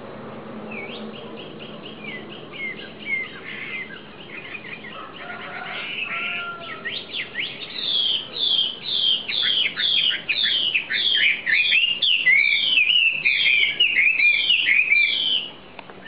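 Caged wambi bird singing: scattered short chirps and falling whistles at first, then about halfway in a loud run of repeated falling whistled notes, about two a second, which stops shortly before the end.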